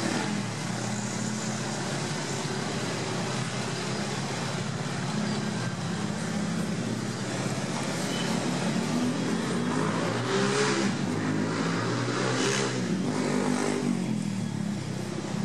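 Road traffic: a steady engine hum from idling motor vehicles, with several vehicles passing by, loudest about two-thirds of the way through.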